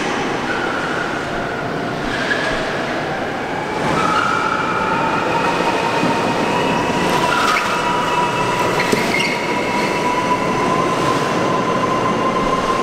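Electric E-Z-GO golf cart's tyres squealing on the smooth concrete floor of a parking garage as it is driven hard and thrown into turns. The squeals come in drawn-out screeches, one held for several seconds, and grow louder about four seconds in, echoing off the concrete.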